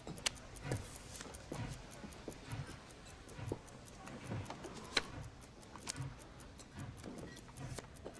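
Slow, steady ticking of a clock, a soft knock roughly once a second, with light clicks of playing cards and coins handled on a wooden table.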